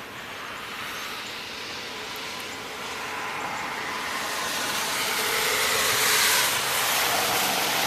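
A vehicle approaching on a wet, snow-covered road; the hiss of its tyres grows steadily louder and peaks about six seconds in.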